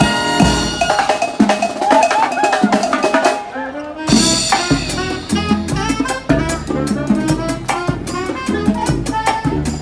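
Brass band playing a lively tune with trumpets and a drum kit. The drums drop back for a moment about three and a half seconds in, then come back in with quick, even strikes under the brass.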